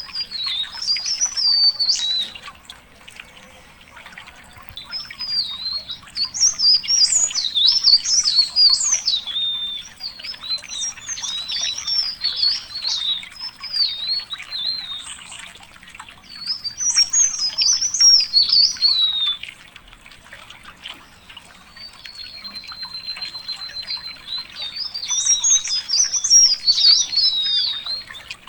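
A songbird singing long, rapid, high-pitched warbling phrases in about five bursts of a few seconds each, with short pauses between them. One phrase opens with a held steady whistle.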